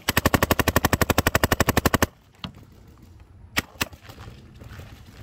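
Paintball marker firing a rapid string of shots, about fifteen a second for roughly two seconds, then stopping. A few single shots follow, the clearest two close together in the middle.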